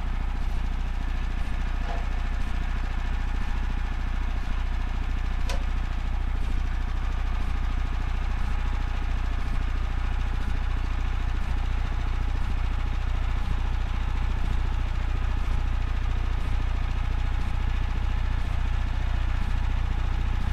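Woodland Mills HM126 band sawmill's small gas engine running steadily at an even pitch, with a single faint click about five seconds in.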